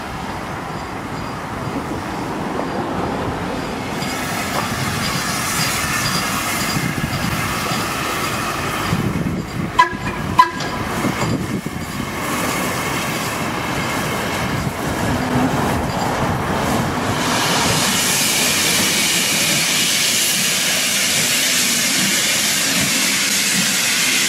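Steam locomotive working slowly past with its train, the running noise slowly growing louder and turning to a loud hiss in the last few seconds. About ten seconds in there are two brief, loud, sharp sounds.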